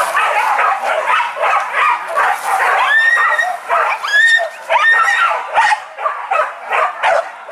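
Several hunting dogs yelping and barking in a fast, overlapping run. A few longer, high yelps come about three to five seconds in, then quick separate barks near the end.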